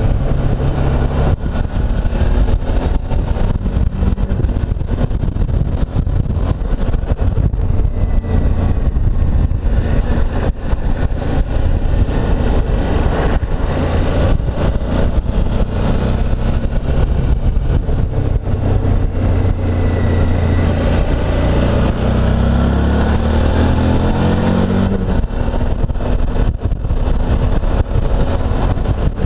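Suzuki V-Strom motorcycle engine running under way on a winding road, mixed with rushing air noise. The engine note climbs as the revs rise about three quarters of the way through.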